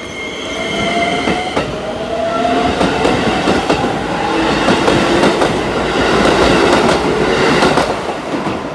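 Keikyu Daishi Line electric train passing close by: its motor whine rises in pitch over the first few seconds as it gains speed, then the wheels clatter over the rail joints, loudest a few seconds before the end.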